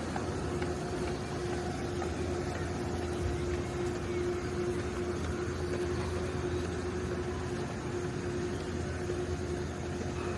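Steady outdoor background noise with a constant low hum running under it.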